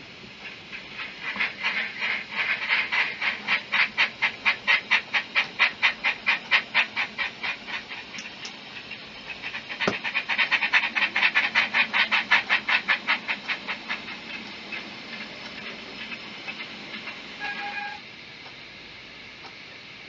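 Bachmann Double Fairlie model locomotive's DCC sound decoder playing steam-engine chuffs with hiss through its small speaker, a few beats a second. The chuffing runs twice, the second run fading away, and a short tone sounds near the end.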